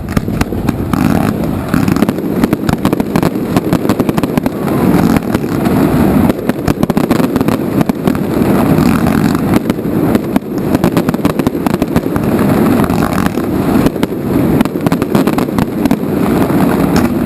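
Fireworks display going off: a dense, continuous run of bangs and crackles over a low rumble.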